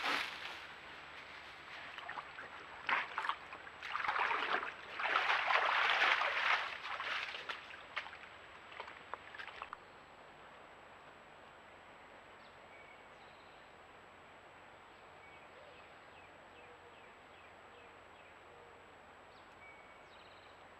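A black bear moving through a creek and its bank vegetation: irregular bursts of splashing and rustling for about the first ten seconds. After that only a steady low hiss remains, with a few faint bird chirps.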